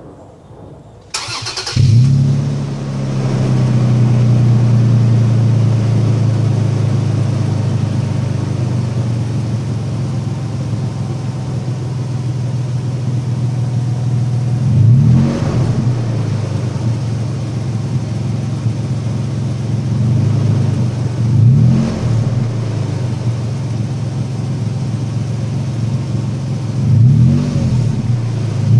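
2014 Toyota Tacoma's TRD exhaust: the engine is cranked by the starter and catches about two seconds in with a brief flare, then idles steadily. Later it is given three short revs, each rising and falling back to idle, held to roughly 2–3000 rpm because the truck is new.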